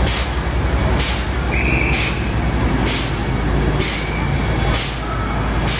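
Heavy diesel engine of an aerial ladder fire truck running with a steady low rumble, with a short sharp hiss repeating about once a second.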